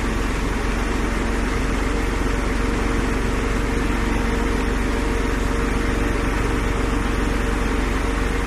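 Spider crane's engine running at a steady speed, a constant drone with a low hum.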